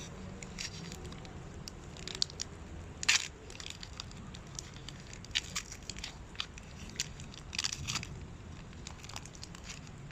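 Crinkling and sharp clicks of trading card packets and cards being handled, irregular, the loudest snap about three seconds in.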